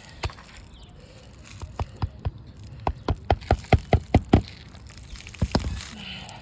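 Hammer driving a roofing nail into an asphalt shingle: a few scattered taps, then a quick run of about eight sharp strikes, several a second, about three seconds in, and a last strike or two after.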